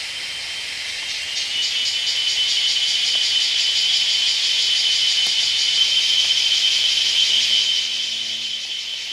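A dense chorus of insects: a steady, high-pitched buzz with a fast, even pulse, getting louder after about a second.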